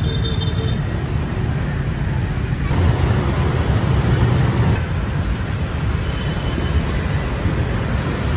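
Street traffic noise: a steady rumble of passing vehicles, changing abruptly about 3 and 5 seconds in.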